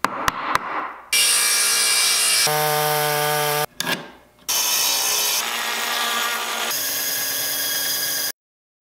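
A string of short woodworking tool sounds, each starting and stopping abruptly: a few clicks and taps, a stretch of rasping cutting noise, a steady pitched machine whine about two and a half seconds in, then more power-tool cutting noise that stops suddenly near the end.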